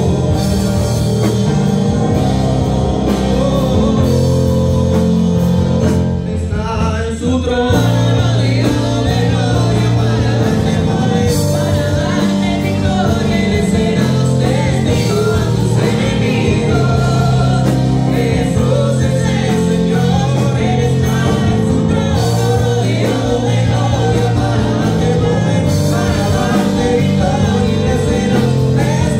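Live Spanish-language gospel worship song: a man and a woman singing into microphones through the church sound system, with electronic keyboard accompaniment and sustained low bass notes.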